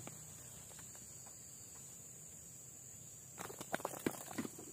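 A steady high insect drone, with a brief flurry of rustling and knocks in the grass about three and a half seconds in as a freshly landed snakehead is handled on the bank.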